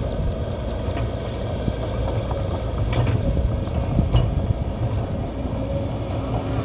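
Excavator's diesel engine running steadily under work, with a few knocks from the machine about one, three and four seconds in.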